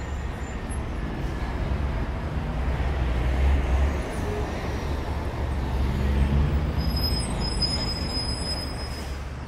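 A noisy, rumbling passage of an ambient electronic track: a dense wash of noise over a deep rumble that swells twice and then eases off, with faint high tones near the end.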